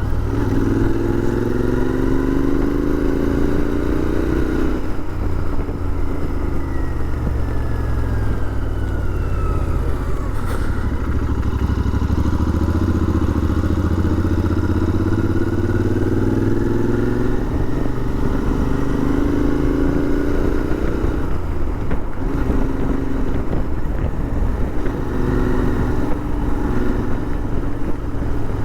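Royal Enfield Interceptor 650's parallel-twin engine running on the road. Its pitch climbs with acceleration and drops back at gear changes, about five seconds in and again a little past twenty seconds.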